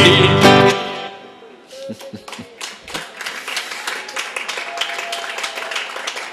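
A sung jingle with acoustic guitar finishes on a last chord that rings out and fades within the first second or so. Then scattered audience clapping follows.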